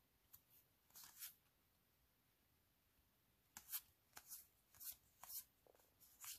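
Soft swishes of Magic: The Gathering cards being slid off one another by hand as a deck is flipped through, about seven in all, most of them in the second half.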